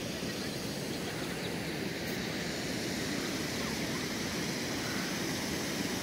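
Steady rushing outdoor background noise, even and unbroken, with no distinct events.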